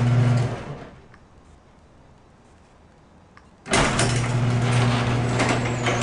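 Chain-drive garage door opener running with a steady motor hum and chain rattle. The hum stops about half a second in and starts again abruptly about three and a half seconds later. This is a test run after the drive chain was realigned, with the door reaching its stop and then travelling again.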